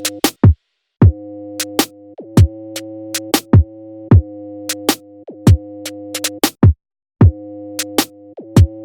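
Electronic background music: a drum-machine beat with punchy kick drums and sharp clicks over held synthesizer tones, dropping out briefly about half a second in and again near seven seconds.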